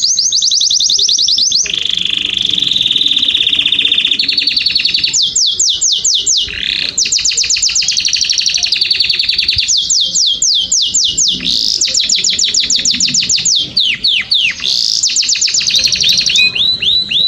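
Domestic canary singing loudly without a break: fast trills and rolls of rapidly repeated downward-sweeping notes, switching to a new tour every second or two.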